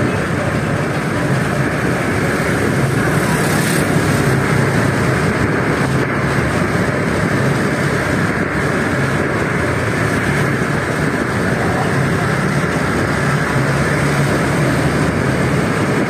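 Steady hum of small motor scooter engines mixed with wind and road rush, heard from a moving scooter riding in a close convoy of scooters.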